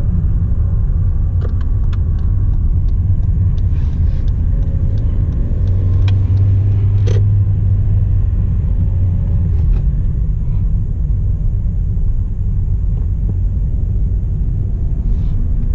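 Hyundai Elantra being driven on the road: a steady low engine and road rumble that swells for a few seconds in the middle, with a few light clicks and one sharper knock about seven seconds in.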